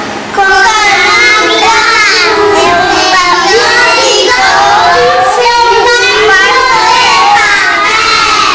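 A group of young children singing together, starting about half a second in.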